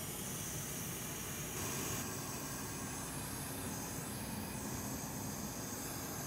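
Steady hiss with a faint low hum beneath it, as from a small electric fan running on the workbench.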